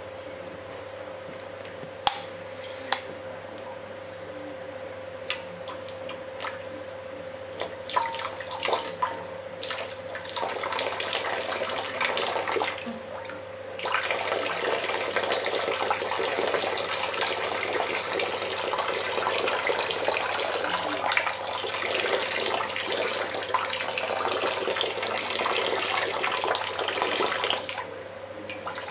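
Water running and splashing in a steady stream that starts abruptly about halfway through and stops shortly before the end. Before that come scattered drips and small clicks and a brief spell of flow. A steady hum sounds underneath the whole time.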